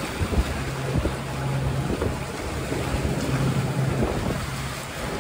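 Wind buffeting the microphone over water rushing and splashing along a boat's hull, with a steady low hum coming and going underneath.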